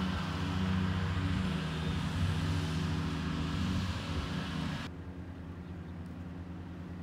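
A steady low mechanical hum like a running engine, under a wash of noise. About five seconds in the noise cuts off sharply and a quieter low hum carries on.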